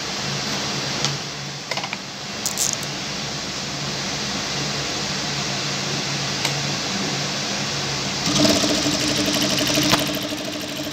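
Industrial lockstitch sewing machine running, stitching net fabric through a gathering foot that bunches it into gathers. A few light clicks come in the first seconds, and about eight seconds in the machine's note rises and grows louder.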